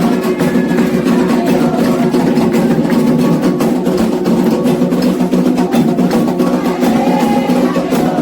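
Candomblé ceremonial music: atabaque hand drums playing a fast, continuous rhythm, with voices singing over them.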